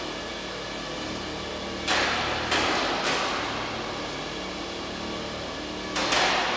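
Combat robot fight: sharp metal-on-metal impacts from a vertical spinner's spinning weapon hitting the opposing robot, each with a short ringing tail. Three hits come about half a second apart roughly two seconds in, and a quick double hit comes near the end. A steady mechanical hum runs underneath.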